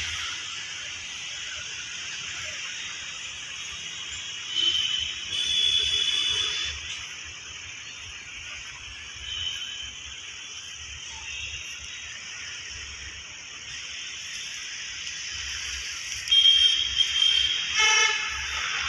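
Background road traffic with vehicle horns honking: short toots a few seconds in and again near the middle, and louder honks near the end.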